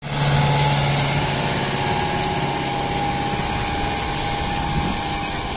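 Kubota compact tractor's diesel engine running steadily as it pulls a trailer heaped with sugarcane; its low drone fades a little over three seconds in.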